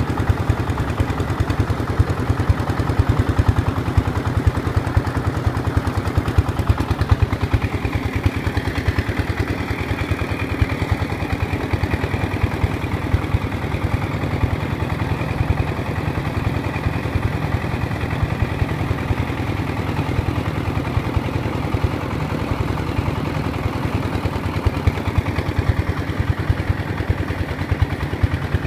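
Engine-driven rice threshing machine running steadily. A small engine chugs evenly and fast, with the threshing drum clattering as rice sheaves are fed into it.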